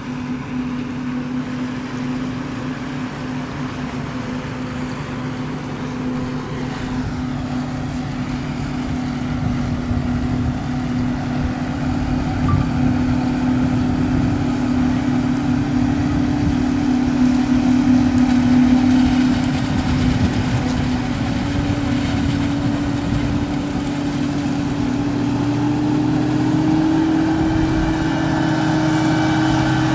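Krone Big X600 forage harvester chopping maize alongside a tractor pulling a silage trailer: a steady machine drone that grows louder as they approach, its pitch stepping up slightly near the end.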